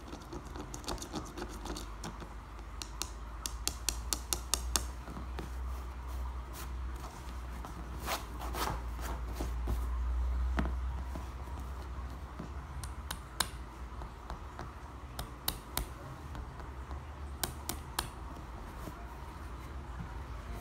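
Fingertips and nails tapping on small blue glazed pool tiles, and the tiles clicking as they are set down on a hard tabletop: a quick even run of taps, about five a second, a few seconds in, then scattered single clicks. A steady low hum runs underneath.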